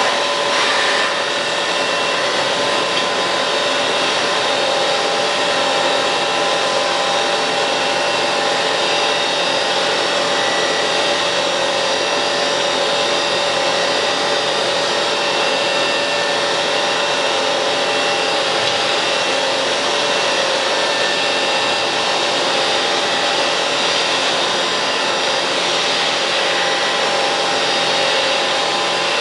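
Mitsui Seiki HT3A CNC horizontal machining center running under power: a loud, steady whir with several steady whining tones over it.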